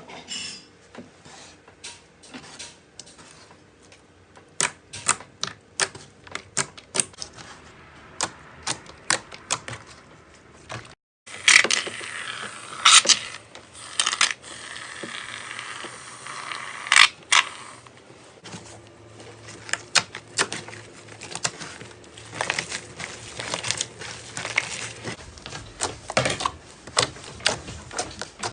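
Slime being pressed and worked by hand, giving irregular sharp pops and crackles. A brief break about eleven seconds in leads into a denser, louder run of pops.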